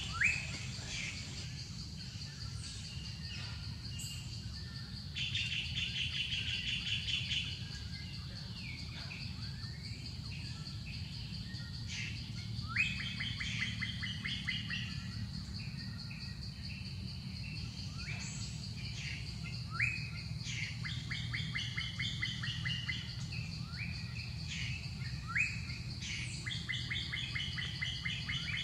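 Wild birds chirping and trilling in repeated short bursts, with quick rising notes, over a steady high-pitched whine and a low background hum. A few sharp clicks are heard.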